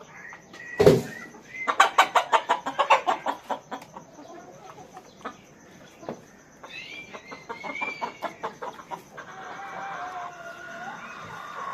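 Chickens clucking in two rapid runs of calls, after a single loud thump about a second in.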